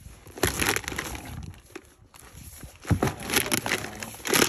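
Irregular crunching and rustling, with louder crunches about half a second in, near three seconds and near the end.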